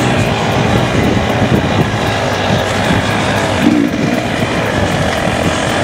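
KTM 300 TPI two-stroke dirt bike engine running and revving up and down while riding a single-track trail.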